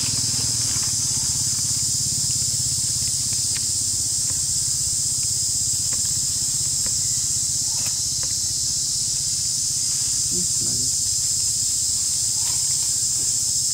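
Steady, unbroken high-pitched drone of an insect chorus in forest, over a low steady hum, with a few faint clicks.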